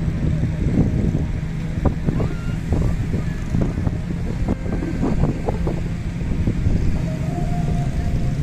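Strong wind buffeting the microphone in a rough, fluctuating low rumble, with a steady low hum underneath.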